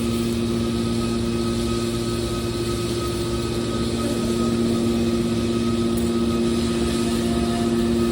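Steady hum of a drum baler press machine's hydraulic power unit running, two steady tones over an even mechanical noise.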